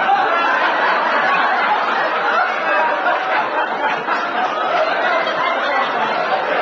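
Audience laughing, loud and unbroken.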